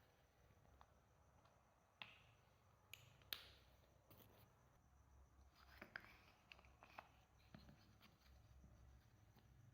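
Soft clay slime being kneaded and pulled by hand, giving faint, scattered sticky clicks and pops over near silence.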